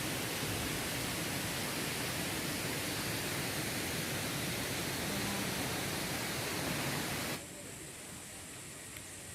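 A steady rushing noise with no clear pitch, which drops abruptly to a quieter hiss about seven seconds in.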